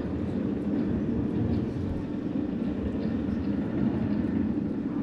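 A steady low rumbling drone with no distinct events.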